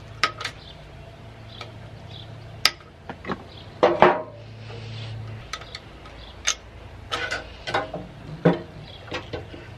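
Irregular metallic clicks, knocks and rattles of flexible steel conduit and wiring being handled and pulled loose from a boiler level control's metal-and-plastic switch box, over a low steady hum.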